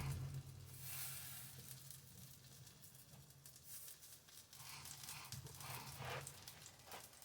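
Faint sizzling of pancake batter cooking in a hot cast-iron skillet, over a low steady hum, with a few light clicks and scrapes.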